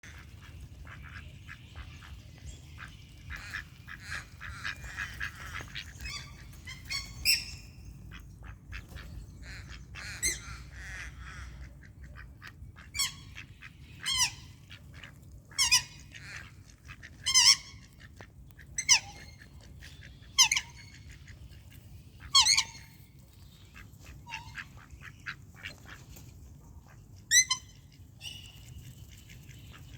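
Wild ducks calling. Softer, clustered chatter comes first, then a run of loud, separate calls about every one and a half to two seconds, with one more near the end.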